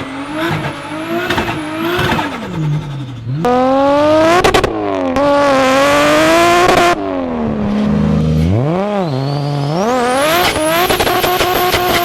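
Turbocharged car engines revving hard in a run of short clips, the pitch climbing and dropping again and again. A high whistle rises about ten seconds in.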